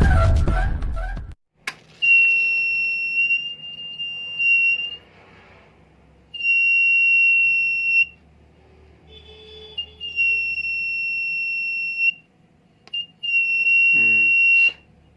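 Buzzer of a homemade fire alarm sounding a steady high-pitched tone, switching on and off in four bursts of two to three seconds each.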